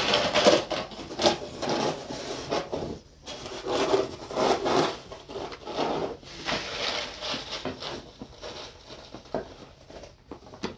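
Plastic snow shovel scraping and pushing through snow in repeated strokes, each about a second long with short pauses between.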